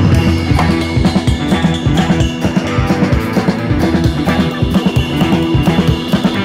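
Background rock music with drums and a steady beat.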